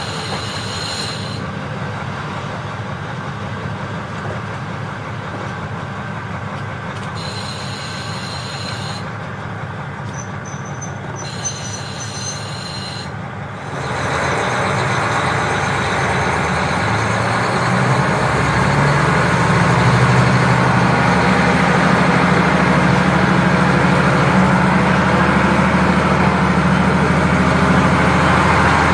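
KiHa 40 diesel railcar running along the line. About 14 seconds in the engine comes under power: the sound grows louder and a low engine note climbs and then holds.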